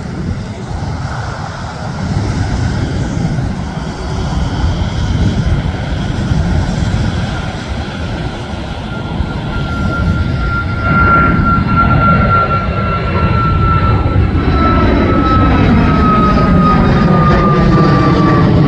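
CFM LEAP-1B jet engines of a Southwest Boeing 737 MAX climbing overhead: a steady rush that grows louder as the jet comes closer. About halfway in, a high whine comes in and slowly falls in pitch as the plane passes.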